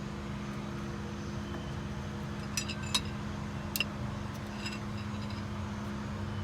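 Hand tools working a stubborn exhaust downpipe nut: a few sharp metallic clinks in the middle of the stretch, over a steady low hum.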